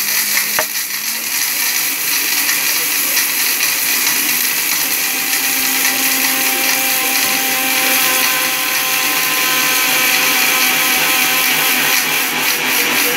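Sujata Powermatic Plus mixer grinder running flat out, grinding whole garam masala spices into powder in its steel grinder jar. It makes a loud, steady motor noise, with a sharp click about half a second in, and its pitch rises a little as it runs.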